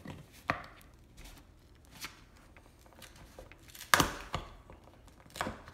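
A small metal pry bar working at the lid of a nailed wooden crate: scattered knocks and scrapes of metal on wood, with the sharpest knock about four seconds in.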